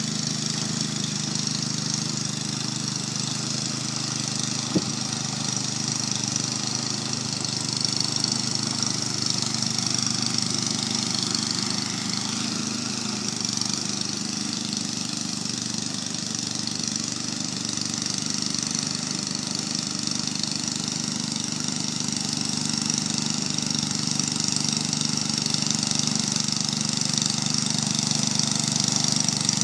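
Walk-behind two-stage snowblower's engine running steadily as it clears snow and throws it out of the chute, with a steady hiss over the engine note. One sharp click about five seconds in; the machine grows slightly louder near the end.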